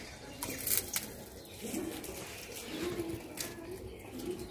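A bird cooing a few times in low calls, with short hissing bursts about half a second in and again around three and a half seconds.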